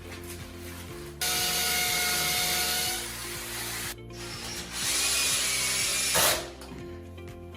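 Electric drill running in two bursts, the first about a second in for nearly two seconds and the second around five seconds in, each with a steady whine: drilling fixing holes for kitchen cabinets. A sharp knock follows about six seconds in.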